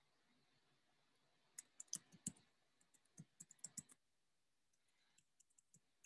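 Faint, irregular clicking of typing on a computer keyboard: a quick run of keystrokes starting about a second and a half in and lasting about two seconds, then a few softer keystrokes near the end.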